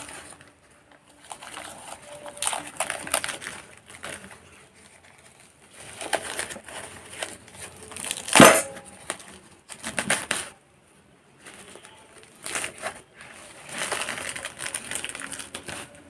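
A black wrapping sheet rustling and crinkling in several bursts as it is pulled off a clay pot, with one sharp knock a little past halfway through.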